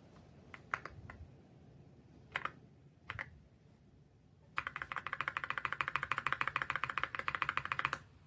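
Keystrokes on a YUNZII X98 mechanical keyboard: a few scattered key presses, then, from about four and a half seconds in, a fast, even run of typing at roughly ten keystrokes a second, which stops just before the end.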